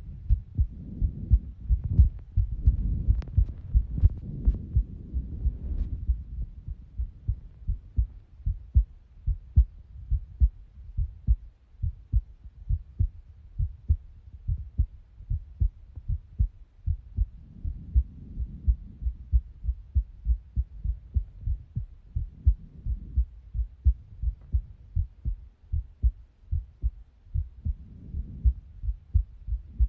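A person's heartbeat: a steady run of low, paired lub-dub thumps. Soft rushing noise comes and goes over it, heaviest in the first six seconds.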